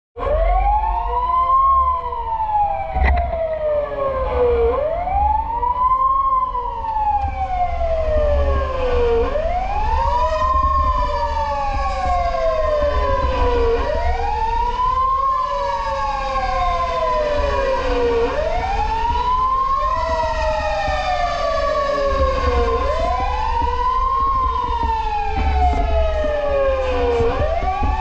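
Fire truck siren wailing, its pitch rising quickly and falling slowly about every four and a half seconds. A second, fainter siren sounds out of step behind it, over a low rumble.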